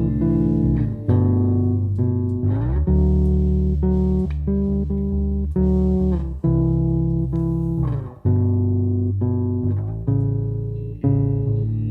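Live band playing an instrumental passage without vocals: guitar notes plucked over a bass guitar line.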